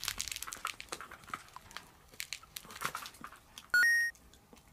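Rustling and crinkling of a plush nose-work toy, with small clicks, as a Pomeranian noses into it after a hidden treat. About four seconds in, a brief rising two-note electronic beep, the loudest sound.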